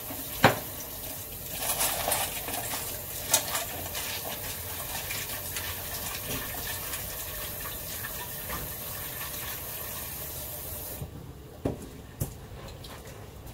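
A kitchen tap runs into a stainless steel bowl as dried red fruit is rinsed, with a sharp knock of metal just after the start and another a few seconds later. The water stops suddenly about 11 seconds in, followed by two more knocks.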